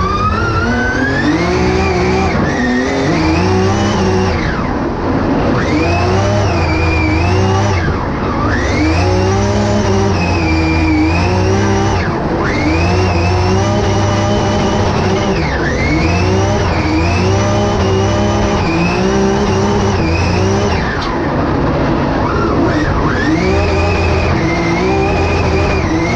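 Drift car's engine heard from inside the cabin on a drift run, revving up hard and dropping back again about a dozen times as the throttle is worked through the corners, with the tyres sliding.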